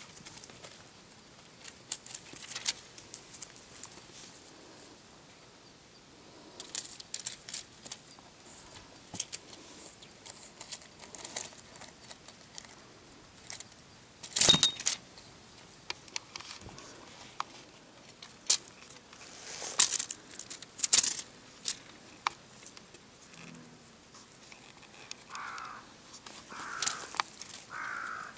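Kittens scuffling and batting at a cat-teaser toy on dirt and dry leaves: scattered rustles with sharp, high rattling clicks, the loudest about halfway through and around twenty seconds in.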